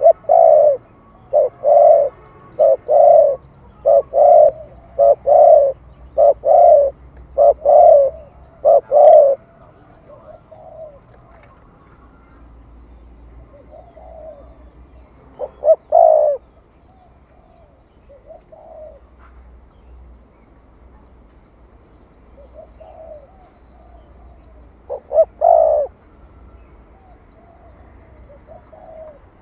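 Spotted dove cooing: a fast run of about a dozen loud, low coos in the first nine seconds. Then fainter scattered coos follow, with a short loud pair about halfway through and another near the end.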